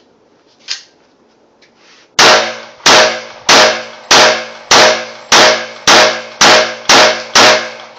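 Glock 30 .45 ACP pistol fired unsuppressed: ten loud shots at an even pace, a little under two a second, starting about two seconds in, each with a short ringing tail.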